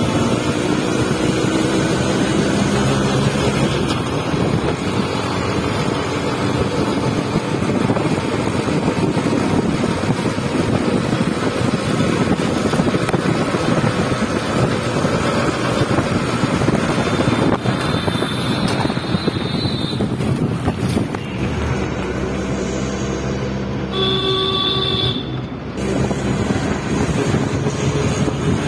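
Engine and road noise of a moving small vehicle heard from on board, with wind buffeting the microphone. A horn beeps for about a second near the end.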